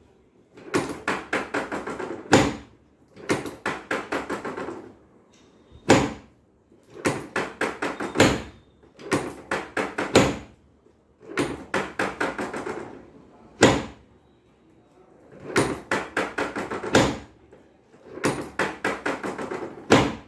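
Rapid percussive knocks in bursts of about eight strokes, each burst followed by one louder sharp strike, the pattern repeating every three to four seconds during chiropractic treatment.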